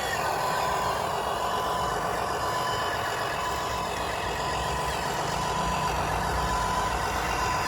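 A truck engine running steadily, with a reversing beeper sounding repeated short beeps over it.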